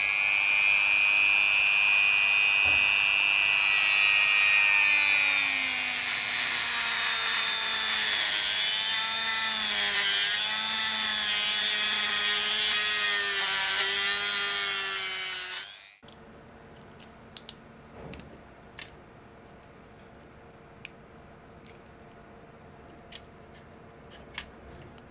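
Dremel rotary tool with a cutoff wheel spinning at high speed and cutting into the hard plastic shell of a DJI FPV drone's motor arm, its high whine wavering and dipping under load. The tool stops abruptly about sixteen seconds in, leaving only a few faint clicks.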